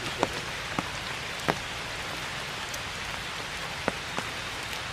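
Steady rain falling, with about five louder drops striking close by as sharp separate taps.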